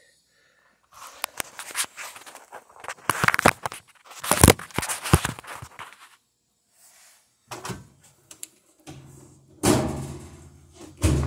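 Knocking, clunking and clattering of a top-load washing machine's cabinet and parts being handled, in irregular bursts, with a low hum and a heavy thud near the end.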